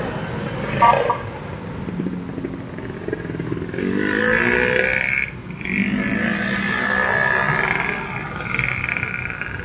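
Motorcycles and scooters running in city traffic, with an engine's pitch rising about four seconds in as one speeds up.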